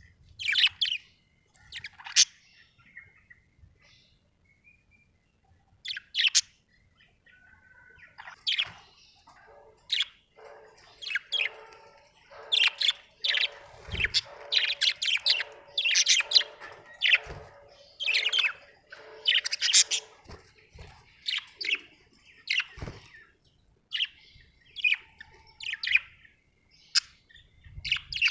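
Budgerigar chirping in short, high bursts, with a quiet spell a few seconds in, then a dense stretch of rapid chirps over a lower chattering warble through the middle.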